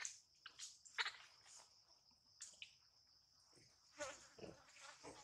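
Insects droning steadily on one high, even tone, faint. A few short faint squeaks or chirps sit over it, about a second in and again near the end.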